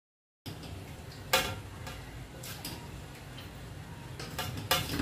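A metal spoon clinking and scraping against a wok and a plate as stir-fried vegetables are served onto a plate of rice: several sharp clinks, the loudest about a second in and a quick cluster near the end, over a low steady hum.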